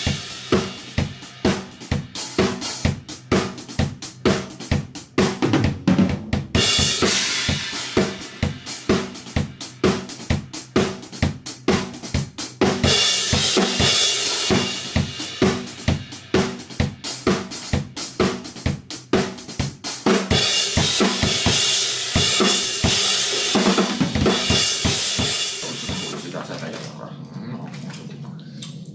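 Acoustic drum kit played to a driving beat: steady kick and snare hits under long stretches of crashing cymbal wash. The playing stops and the kit rings out and fades over the last few seconds.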